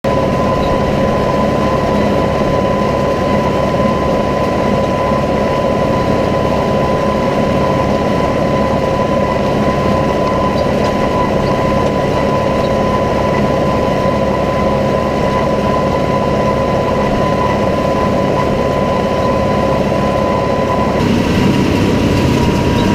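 John Deere tractor running steadily while pulling hay equipment, with a steady high whine over the engine. The whine drops away and the sound changes near the end.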